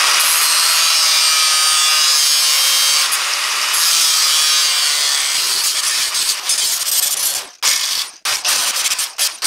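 Angle grinder cutting away steel on a car's front crossmember to clearance it for a relocated steering rack. It runs steadily for about five seconds, then goes in short broken bursts.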